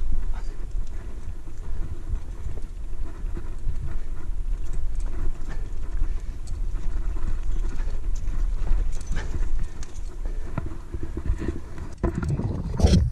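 Wind rumbling on a helmet camera's microphone as a climber moves up rock, with scattered clicks and scrapes of hands, shoes and gear on the stone. A louder knock and rustle comes near the end.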